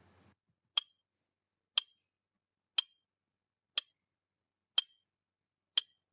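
Countdown-timer sound effect: six sharp, clock-like ticks, one a second.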